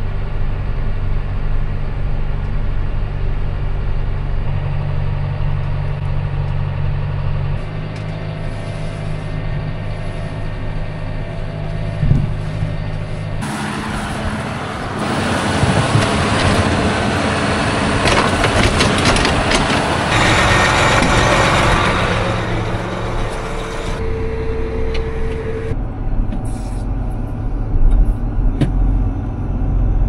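Tractor diesel engine running steadily, heard from inside the cab while the loader works. About halfway through it turns into a louder, rougher, noisier stretch of machine sound for about ten seconds, then settles back to a steady engine, with a few sharp knocks near the end.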